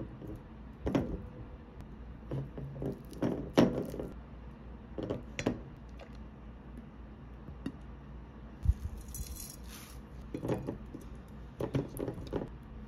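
Wooden spoon knocking and scraping against a ceramic bowl as thick yogurt is scooped into it, a run of soft uneven knocks and clinks. Near the end, a few more soft knocks as grapes are tipped from a wooden board into the bowl.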